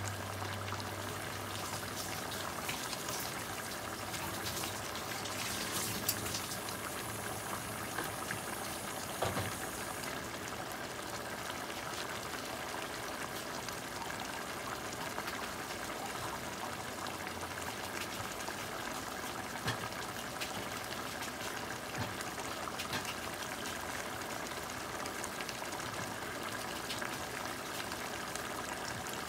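Pan of salted fish and red peppers cooking in butter on a gas burner, simmering with a steady sizzle and bubbling and scattered small pops.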